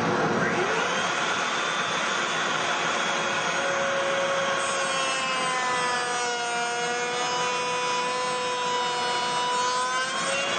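Table-mounted router with a rail and stile bit running, its whine rising as it spins up about half a second in. From about four seconds the bit cuts a cope into the end of a wooden rail, the pitch sagging slightly under the load and recovering near the end.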